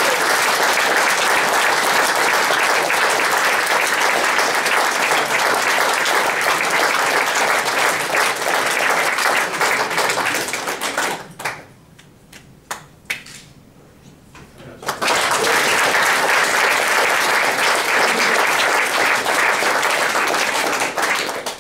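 Audience applauding in a hall. The clapping breaks off sharply for about four seconds midway, then starts up again until near the end.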